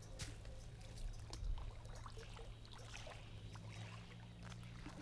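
Bare feet stepping on a dirt bank, then light splashing and sloshing as they wade into shallow pond water.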